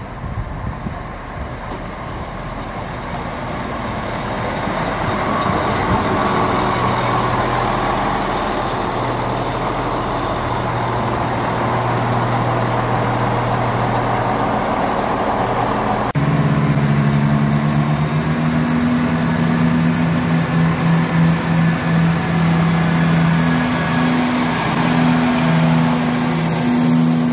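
East Midlands Railway Class 170 Turbostar diesel multiple unit running through the station, its underfloor diesel engines and wheels growing louder as it approaches. About two-thirds of the way in, the sound changes suddenly to a stronger, pulsing engine drone as the carriages pass close by.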